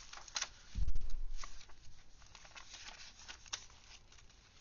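Paper pages of a handmade junk journal being handled and turned, with scattered rustles and crinkles and a soft low thump about a second in.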